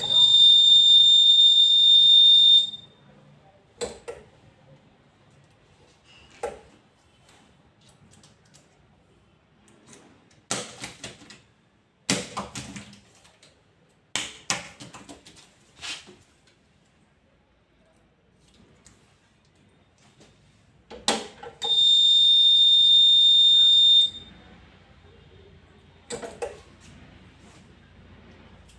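An electronic machine buzzer sounds a steady high beep for about two and a half seconds, twice: at the start and again about 22 seconds in. Between the beeps come scattered clicks and plastic rustling as filled pouches are handled, sealed and dropped on the table.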